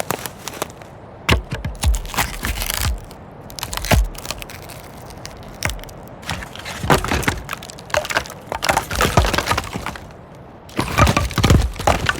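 A run of wood cracking and snapping sounds: sharp splintering cracks and breaks of branches and wood in quick clusters, with a few heavier low thuds, over a faint outdoor forest ambience.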